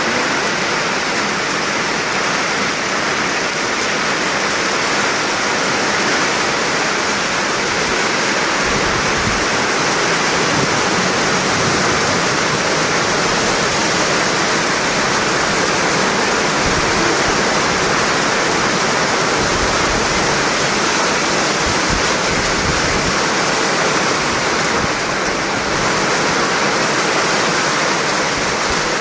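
Heavy rain pouring steadily, a loud, even rushing hiss.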